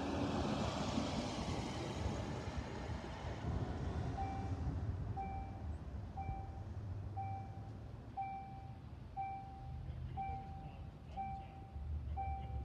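A car drives past over the crossing. About four seconds in, the level crossing's loudspeaker warning bell starts: one short electronic tone repeating about once a second, the signal that a train is approaching.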